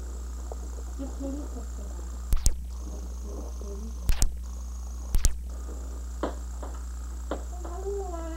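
Steady electrical hum on an old VHS camcorder tape, broken three times by loud, sharp double clicks where the tape glitches, with a few brief, faint vocal sounds.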